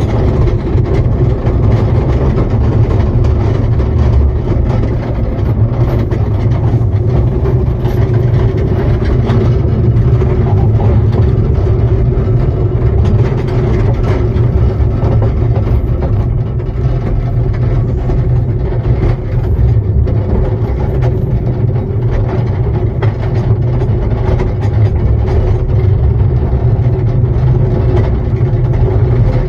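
Ride-on miniature railway train running along its track, heard from the coach behind the locomotive: a steady low rumble of the locomotive and the wheels on the rails.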